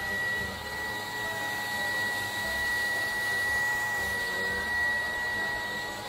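Puppyoo T12 Home Rinse cordless stick vacuum running with its motorized bedding brush on a mattress: a steady high motor whine over a rush of air, with lower tones that rise and fall as the head is worked across the fabric.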